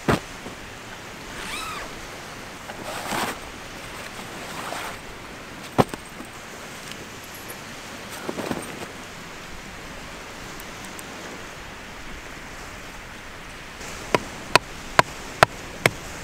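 Small waves washing on a sandy shore with a steady hiss of wind and water, and a few brief rustles. Near the end a run of sharp clicks starts, about two a second.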